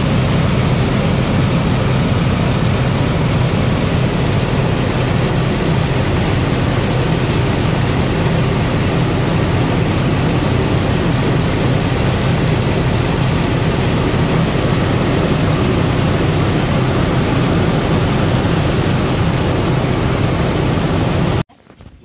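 Rice mill machine running steadily while milling rice: a loud, even machine hum with a rushing noise as the grain pours through its chute into a bucket. It cuts off suddenly just before the end.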